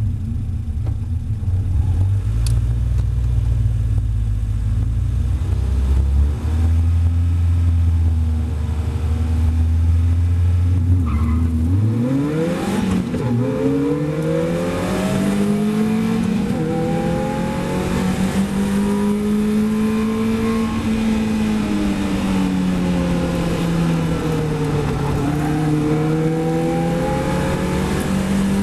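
Onboard sound of a Caterham race car's engine: a steady low note at first, then about twelve seconds in the revs climb sharply as the car accelerates hard. The pitch rises and falls with the gear changes, over wind and road noise in the open cockpit.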